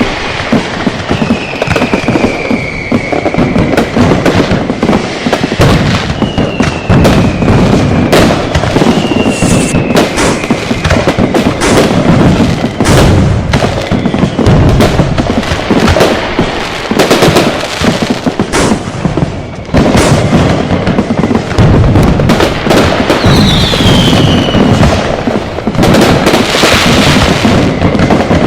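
A dense, continuous barrage of firecracker and fireworks explosions, bangs overlapping one after another, with several short falling whistles from whistling fireworks.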